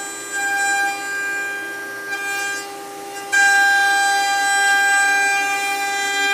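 Spindle of an SR-100 CNC sheet router turning a half-inch router bit through a wooden scrap board: a steady high whine with a ladder of overtones. It dips twice briefly, then grows louder and steadier about halfway through. The pass squares the new scrap board to the machine table.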